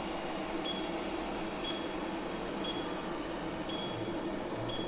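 Steady machine hum from a zirconia sintering furnace, with a faint short electronic beep repeating about once a second.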